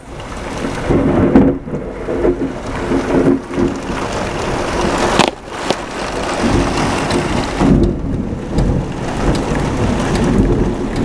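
Thunder rumbling after a lightning strike, swelling and rolling over a steady downpour of heavy rain, with one short sharp crack about five seconds in.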